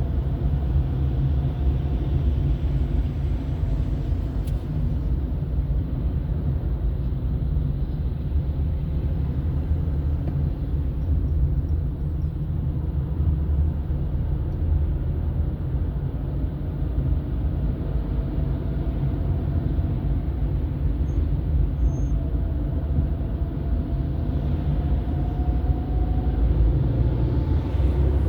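A car driving on a road: a steady low rumble of engine and tyre noise, with a faint whine that slides slightly in pitch now and then.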